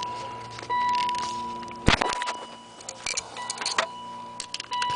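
BMW E38's electronic warning chime sounding over and over, each a steady tone that starts sharply and fades, about every one and a half seconds. Sharp clicks and light rattling of keys and plastic come from the ignition switch being worked loose, with one loud click about two seconds in.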